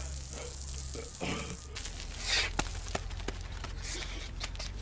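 Outdoor shower water spraying and splashing onto a man, a steady hiss with scattered small clicks and splashes over a low hum. A brief voice sound comes about a second in.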